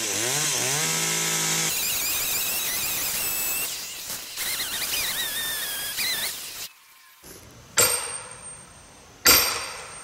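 Chainsaw revving up and then cutting into the tree trunk, its pitch wavering under load, until it stops about seven seconds in. Then come two loud, sharp strikes about a second and a half apart: a sledgehammer driving a steel felling wedge into the cut.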